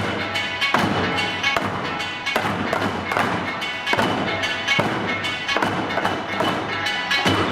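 Eisa taiko drums struck together about every 0.8 seconds, in a steady beat over pitched backing music.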